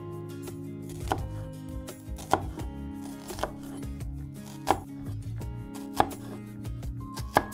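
Knife chopping on a cutting board, about six even strokes a little over a second apart, over soft background music.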